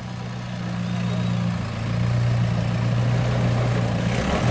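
Jeep Wrangler's engine running steadily at low revs as the vehicle crawls over rocks. The engine's note grows a little louder about two seconds in and shifts briefly near the end.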